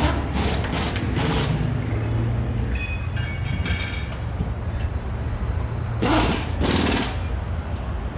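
A steady low engine rumble, with two hissing bursts about a second long, one at the start and one about six seconds in, and a short high squeal around three seconds in.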